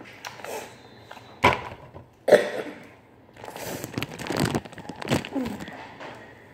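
Plastic bag of grapes rustling and crinkling right against the microphone, with two sharp knocks about a second and a half and just over two seconds in.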